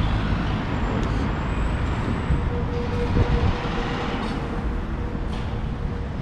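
City street traffic: motor vehicles running and passing with a steady low rumble, and a thin steady whine coming in from about halfway.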